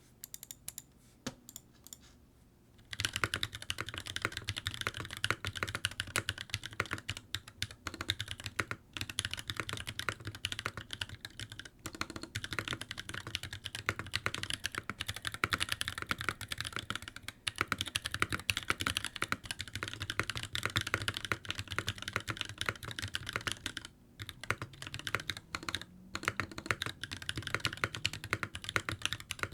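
Typing on a mechanical keyboard with lubed Durock POM T1 67g tactile switches, Akko PBT doubleshot keycaps and an NK65 case. A few separate keystrokes come first, then fast, continuous typing from about three seconds in.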